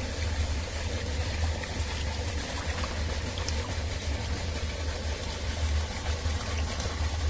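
Shallow water running steadily around hands and legs in a muddy pond channel, a continuous rushing with a low rumble underneath.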